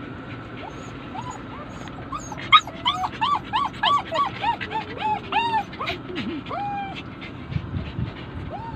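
Poodle whining in a quick run of short, high, rising-and-falling cries, several a second from about two seconds in to nearly six, then a few more spaced out near the end. The dog is crying for its owner, who has left it in the car.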